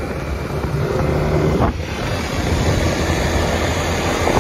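Motorbike running at road speed, its engine a steady low rumble under wind buffeting the microphone, with one brief knock a little under two seconds in.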